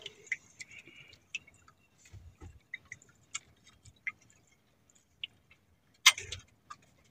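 Handline for squid being hauled in hand over hand, giving scattered small clicks and taps, with a louder short burst about six seconds in.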